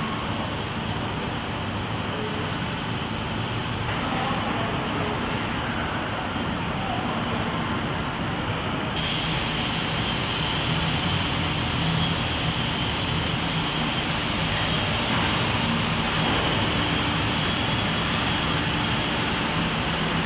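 Steady factory-floor background noise: a continuous low machinery hum with an even wash of noise over it. No single knock or event stands out, and the texture shifts slightly a couple of times.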